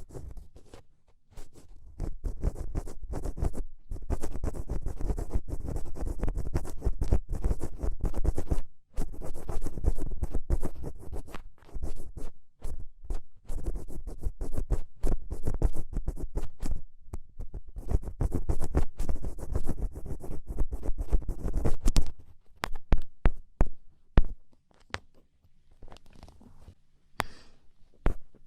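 Black ear pick scratching close against the microphone in rapid scraping strokes, in long runs with brief pauses, then thinning out to a few scattered light taps and scrapes for the last several seconds.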